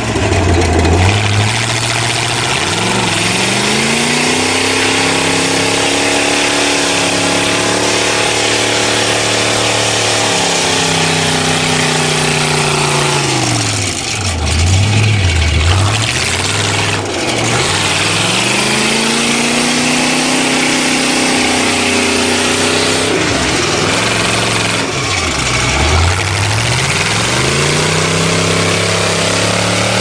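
Car engine revving up and holding at speed for several seconds, dropping back low about halfway through and again near the end before picking up again, with a steady hiss throughout.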